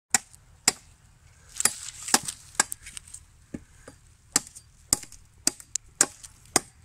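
A hand blade chopping into a wooden pole, about a dozen sharp strokes at an uneven pace of roughly two a second, paring the pole's end down to a point so it will drive into the ground.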